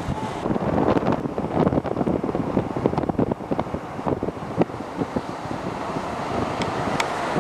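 Road noise and wind on the microphone inside a moving car. A dense run of irregular knocks and rattles fills the first few seconds, and a couple of sharp clicks come near the end.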